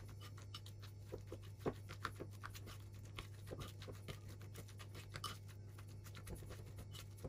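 Metal spoon stirring a thick mascarpone and chopped-pickle mixture in a ceramic bowl: faint, irregular scrapes and light clinks against the bowl, one a little louder about a second and a half in.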